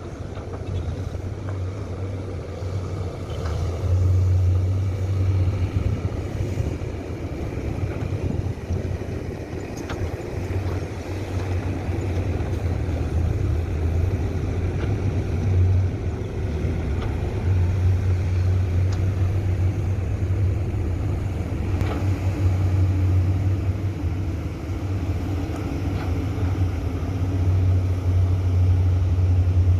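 Komatsu PC200-8 excavator's diesel engine running as it works, a steady low hum that swells louder for several seconds at a time as the machine comes under load, with a few faint knocks.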